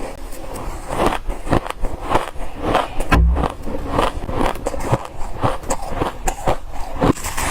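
Soft, dry freezer frost being crunched and scraped: a quick, irregular run of crisp crunches with small crackles between them, and a dull thump about three seconds in.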